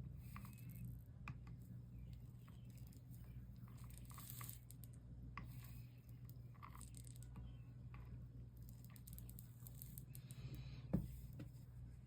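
Faint handling noises at a work table: small rustles, crinkles and light clicks, with one sharper click near the end, over a steady low electrical hum.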